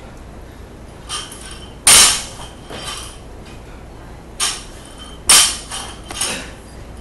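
Barbell loaded with bumper plates being lowered and dropped onto a rubber lifting platform during repeated snatches: two sharp thuds with the plates and collars clanking, about two seconds in and again about five seconds in, and lighter knocks in between.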